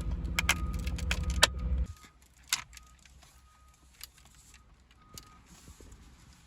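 Plastic console trim clicking and rattling as it is pressed onto its locating pins: several sharp clicks in the first two seconds, then a few fainter ones. A low rumble stops about two seconds in, and a faint high beep sounds on and off.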